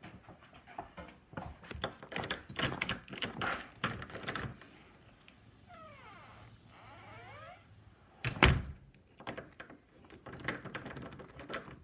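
Doorknob of a panelled exterior door being turned and rattled, the latch clicking many times. The door shuts with a loud thud about eight seconds in, followed by more knob and latch clicks.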